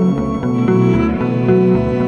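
Background music: sustained notes that change pitch every half second or so over a low, pulsing bass line.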